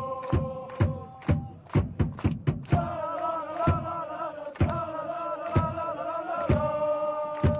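Football supporters chanting in unison, many voices holding long sung notes over a steady beat about twice a second. The singing drops out about a second in and comes back on a higher note about three seconds in.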